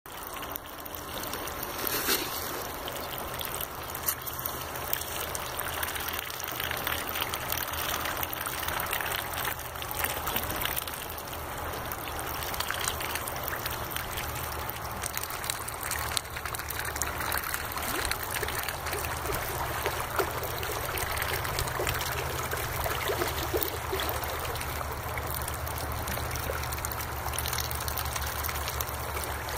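Water trickling and running steadily into a pond, with a low steady hum underneath and a few faint clicks and splashes.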